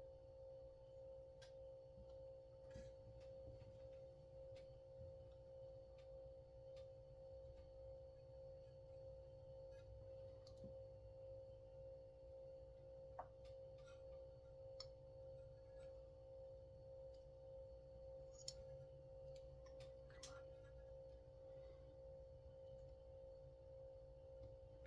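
Near silence under a steady, faint high hum, with a few faint, light clicks of small metal parts as a chainsaw recoil starter is handled during reassembly.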